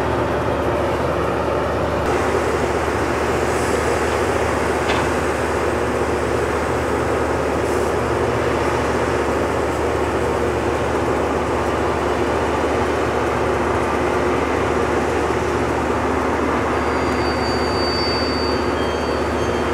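Loram rail grinder train passing close, a loud steady rumble of its running machinery and rolling cars, with a faint high whine near the end.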